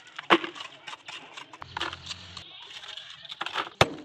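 Broken concrete being knocked and scraped around a ceramic squat toilet, with a sharp knock about a third of a second in, and a hammer blow on the concrete near the end as the floor is broken up for demolition.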